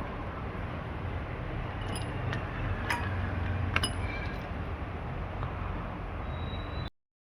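A few light metallic clinks of small repair tools on a phone circuit board, about two, three and four seconds in, over a steady blowing hiss. The sound cuts off abruptly near the end.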